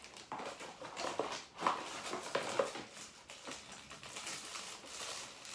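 Rustling and crinkling of plastic wrap and cardboard packaging as accessories are pulled out of a camera box, irregular and crackly, with a few brief squeaks about a second in and again halfway through.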